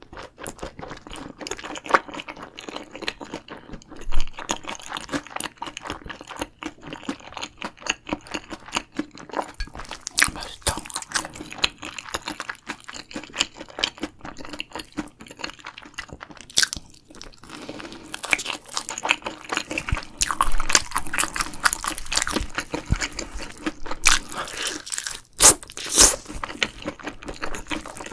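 A person biting and chewing crunchy food close to the microphone: many sharp, irregular crunches, getting busier and louder in the last third.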